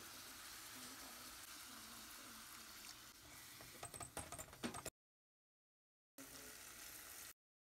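Manchurian sauce with onions and green peppers simmering in a pan, a steady faint bubbling hiss. About four seconds in comes a quick run of sharp clicks and scrapes as a spoon stirs in cornstarch slurry. The sound then drops out for about a second before the simmering returns.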